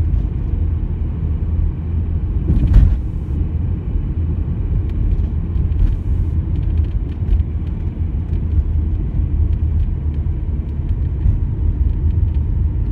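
Steady low rumble of engine and tyre noise inside a moving car's cabin. A brief thump, the loudest sound here, comes a little under three seconds in.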